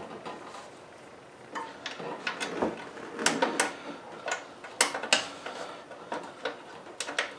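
Metal engine parts of a lawnmower being handled and fitted together by hand: a scatter of light clinks and knocks, some with a brief metallic ring, busiest through the middle.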